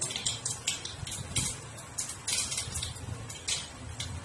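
Hot oil sizzling in a wok with small seeds crackling and spitting in it, a quick irregular run of sharp pops, as the tempering for a dal is fried.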